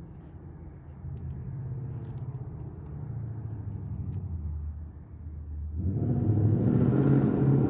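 An engine running with a low, steady rumble, growing much louder about six seconds in.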